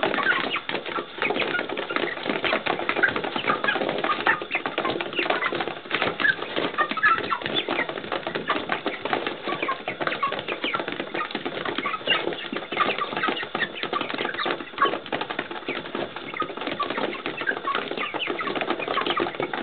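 A flock of young pullets feeding in a frenzy: a dense, continuous clatter of beaks pecking at feed, mixed with many short high cheeps and some wing flapping.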